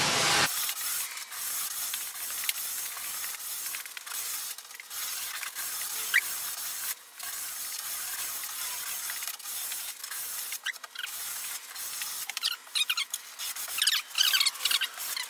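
100-grit sandpaper rubbed by hand along the rounded-over edge of a mahogany plank: a steady, scratchy hiss of sanding strokes, with louder, sharper strokes near the end.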